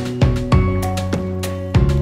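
Background music: held notes over a bass line, with a light, regular percussive tick.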